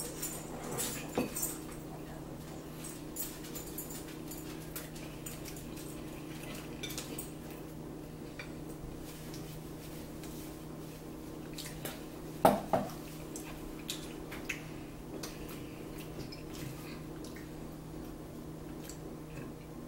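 Cutlery and dishes clinking at a meal: scattered light clicks and taps of a fork against plates and bowls, with one louder short clatter about twelve seconds in, over a steady low hum.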